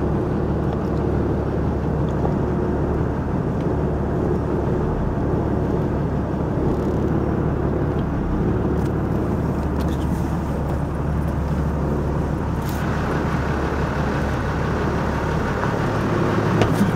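An engine running steadily, a low even hum that holds its pitch, with a hiss coming in about thirteen seconds in.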